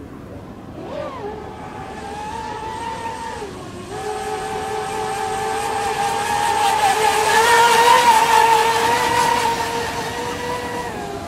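Radio-controlled speedboat's motor running at high speed with a high, steady whine. The pitch drops briefly about a third of the way through, then the whine grows to its loudest about two-thirds through and eases off.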